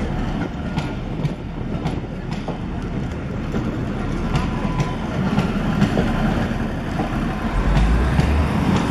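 Charter train's passenger coaches rolling past, their wheels clicking over rail joints with a steady rumble underneath.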